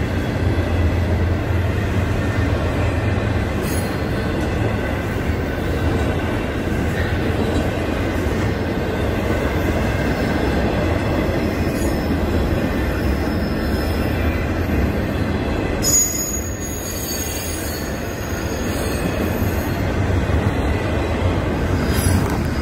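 Intermodal freight train's cars rolling past, a steady rumble of wheels on rail. A high wheel squeal comes in about 16 seconds in and lasts a few seconds.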